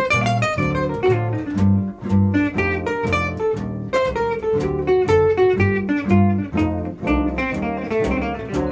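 Gypsy-jazz acoustic guitar and plucked double bass playing an instrumental passage. A moving single-note guitar line runs over rhythmic strummed chords, with a bass note on each beat.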